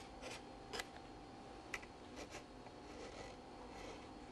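A knife scraping and paring partly set plaster on a pot's rim: faint, short scrapes at irregular intervals, one every half second or so.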